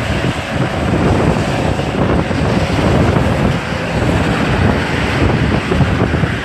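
Hurricane wind buffeting the microphone hard, a loud, steady rush of noise with gusty low rumbling.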